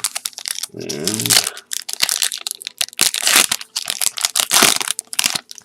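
Foil wrapper of a trading-card pack crinkling and being torn open: a dense run of sharp crackles.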